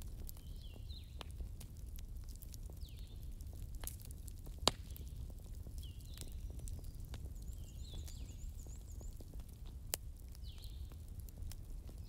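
Wood fire burning with sharp crackles and pops over a low steady rumble; the loudest pop comes about halfway through and another near the end. A short, high, falling call from an animal repeats every two to three seconds in the background.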